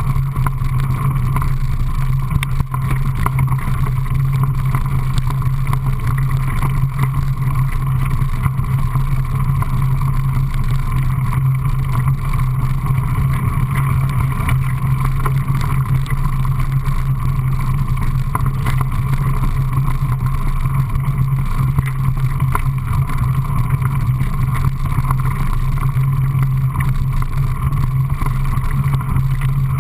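Mountain bike riding along a gravel singletrack: the tyres rumble on the loose surface and wind buffets the microphone, making a loud, steady rushing rumble with no breaks.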